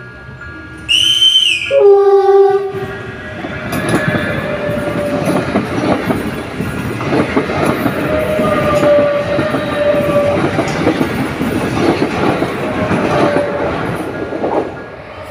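Electric commuter train sounds a two-note horn about a second in, a high note then a low one. It then passes close by with a steady rush of wheels on rail, clicks over the rail joints and a motor whine, dying away near the end.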